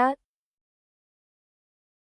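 A voice finishing a word right at the start, then complete silence.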